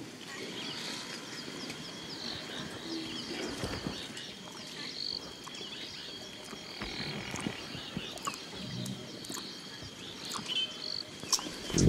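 African bush ambience: birds chirping over a steady, high insect drone, with faint rustling.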